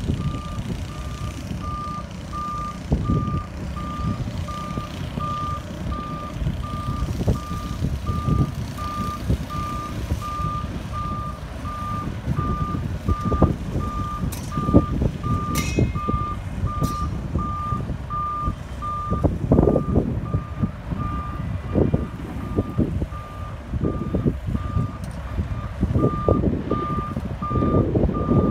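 Reverse alarm on a car-carrier semi-truck beeping about once a second as the rig backs up, over the low rumble of its diesel engine. A brief high squeal sounds about halfway through.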